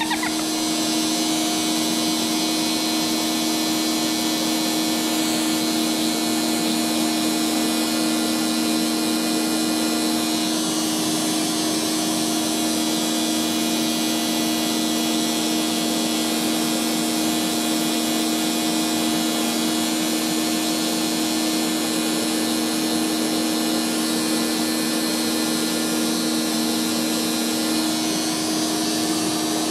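Vacuum cleaner motor running steadily, pulling air through a Flowbee vacuum haircutting attachment: a steady hum with a fainter high whine above it.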